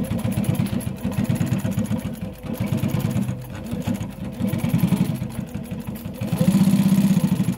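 Juki LU-1560N two-needle walking-foot industrial sewing machine stitching through leather hide and webbing binding: a fast, even run of needle strokes with a couple of brief slowdowns. It runs loudest near the end, then stops abruptly.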